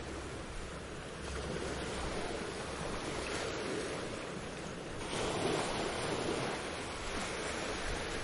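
Ocean waves washing onto a beach, a steady surf rush that swells louder as a wave comes in about five seconds in.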